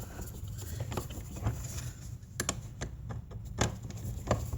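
Scattered small metallic clicks and taps of screws being backed out of a car amplifier's power supply section, with a few sharper clicks over a low steady hum.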